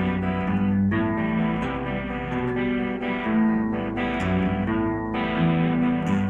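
Guitar playing chords between the sung lines of a song, the chords changing roughly once a second.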